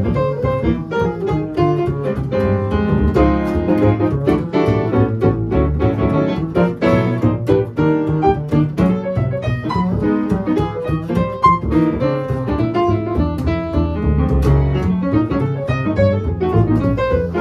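Live jazz: acoustic piano playing busy lines and chords over a plucked upright double bass walking beneath it.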